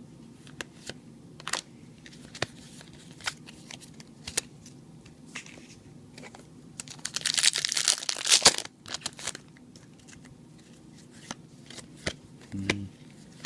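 Yu-Gi-Oh! cards being handled with light clicks and shuffles, and a foil booster-pack wrapper crinkling and tearing loudly for about a second and a half around the middle.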